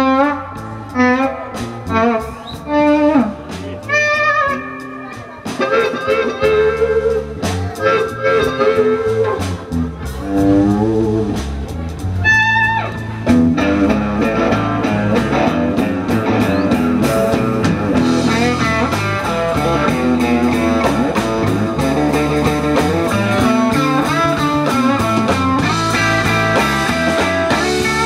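Live blues band playing an instrumental break: an electric guitar plays bending lead phrases over bass and drums, and about halfway through the band fills in to a steady, denser groove.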